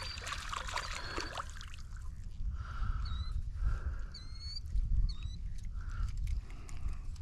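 A bird giving about five short, high, sharp calls, each ending in a slight upward hook, spread across several seconds, over a steady low rumble.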